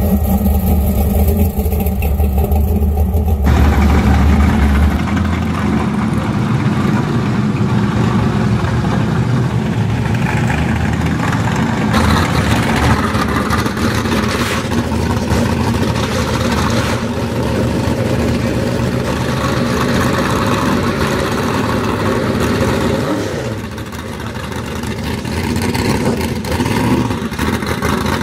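Loud engines of pro street muscle cars running and revving as the cars drive slowly past one after another. The sound changes abruptly a few times as one car gives way to the next.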